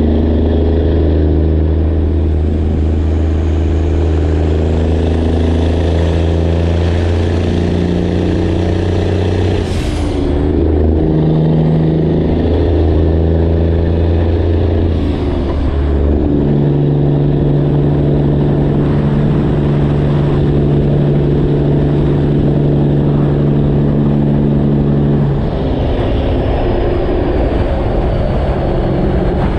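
Freightliner Classic XL semi truck's diesel engine pulling under way, its steady note dropping out briefly and settling at a new pitch three times, about ten, sixteen and twenty-five seconds in, as the gears are changed.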